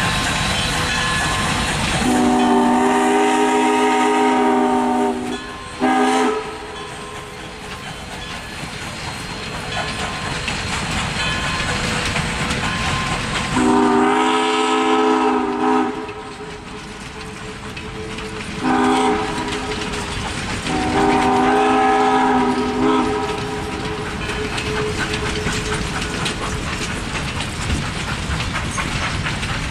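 Passenger cars rolling past with a steady rumble and wheel clatter, while the Baldwin 2-8-0 steam locomotive GSMR 1702 blows its whistle: a long blast about two seconds in and a short one right after, then later a long, a short and a long blast.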